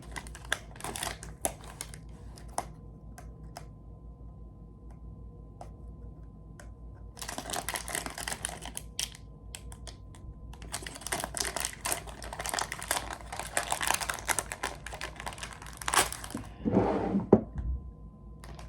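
Plastic packaging crinkling and crackling as a small parcel is handled and opened, in several spells with quieter gaps between. A low knock comes near the end.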